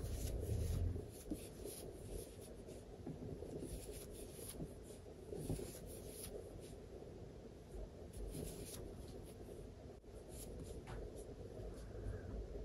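Faint scratchy rubbing of a size 8 aluminium crochet hook drawing fluffy yarn through stitches, with a few soft ticks here and there.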